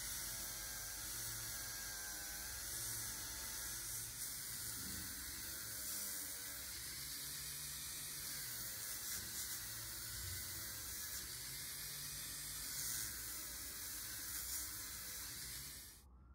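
A small electric motor running steadily with a slightly wavering pitch over a hiss, stopping suddenly near the end.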